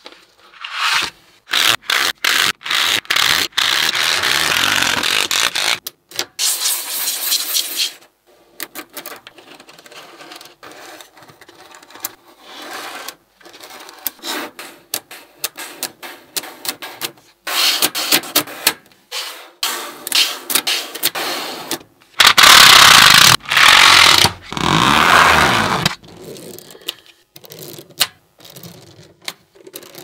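Small magnetic balls clicking and rattling against one another as sheets and rows of them are slid and snapped into place, in bursts of rapid clicking and rustling scrapes. Loudest in a long stretch about three-quarters of the way in.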